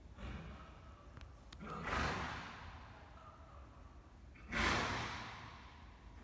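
Two loud breathy exhalations, like a sigh or a blow of air, about two and a half seconds apart, each swelling and fading over a second or so.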